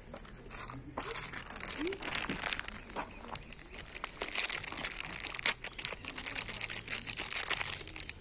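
Thin plastic packaging bag crinkling and rustling in the hands, an irregular run of crackles starting about a second in, while a new coolant expansion-tank cap is handled.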